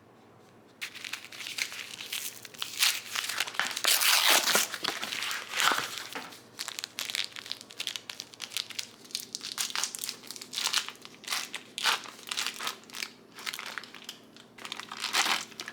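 A cream cheese wrapper being crinkled and peeled open, an irregular run of crackling that starts about a second in.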